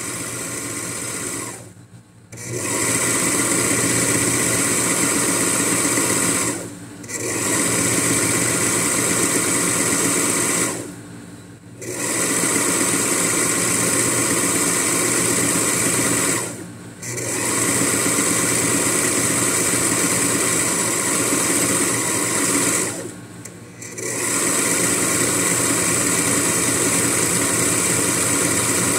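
Electric Singer domestic sewing machine running steadily as it stitches an edge finish on a fabric edge. It goes in stretches of about five seconds and stops briefly five times.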